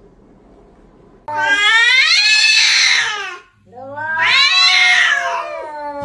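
A domestic cat yowling: two long, loud, drawn-out calls, the first starting abruptly about a second in and falling in pitch at its end, the second following after a short break.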